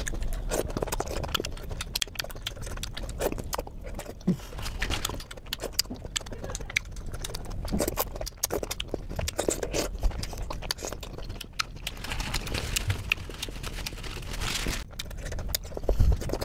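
Close-miked eating sounds of soft fruit dipped in cream: wet chewing, lip smacks and sharp mouth clicks coming irregularly, with sucking as fingers are licked.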